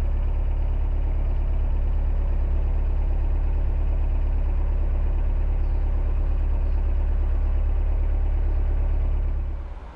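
Narrowboat's inboard diesel engine running steadily at cruising speed, a deep even drone, which drops away sharply near the end.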